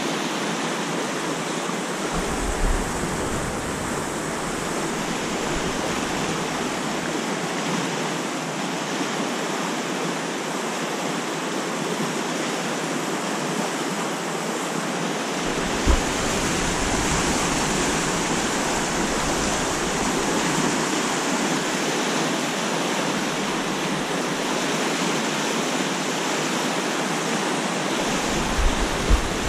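Rushing whitewater of a fast, shallow trout stream pouring over rocks, a steady loud roar with a couple of soft knocks.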